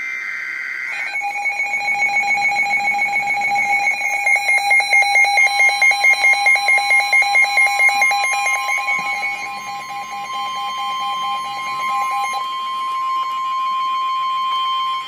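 Emergency alert tones for a severe thunderstorm warning. A brief warbling burst of data tones comes first. Then steady electronic tones start, with a fast pulsing beep in the middle, and about five seconds in a second steady tone sets in and holds.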